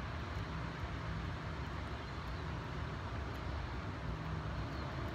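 Steady low rumble and hiss of wind and moving river water below a dam, with a faint steady hum underneath.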